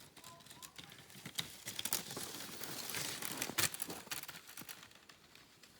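Crunching and scraping in snow that builds to its loudest in the middle and then fades away.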